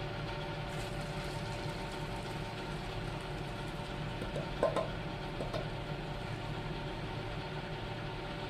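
A steady mechanical hum with a faint whine in it, and a few faint short sounds a little past halfway.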